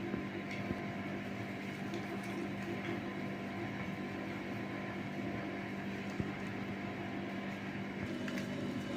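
Steady mechanical hum with a low droning tone and a few faint clicks.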